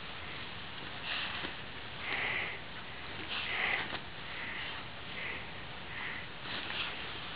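German Shepherd Dog sniffing at a blanket with its nose down in the fabric: about ten short breathy snuffles at irregular intervals.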